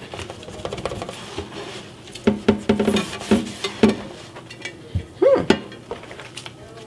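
A sponge scrubbing the enameled cast iron lid of a braiser in a stainless steel sink of soapy water, with a run of knocks and short ringing clinks of the heavy lid against the pot and sink about two to four seconds in, and another knock a second later.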